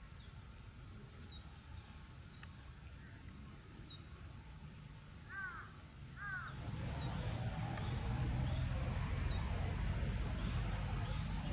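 Outdoor birdsong: small birds giving short high chirps again and again, with two crow caws about halfway through. A little after that, a low, even background noise comes up louder and stays.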